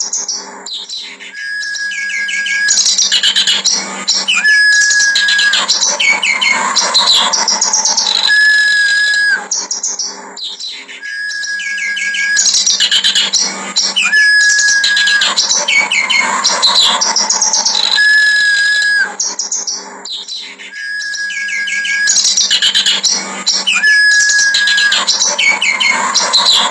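Kerak basi reed warbler singing a harsh, chattering song broken by clear held whistles, the same phrase sequence repeating about every ten seconds as a looped recording. A faint steady low hum lies under it.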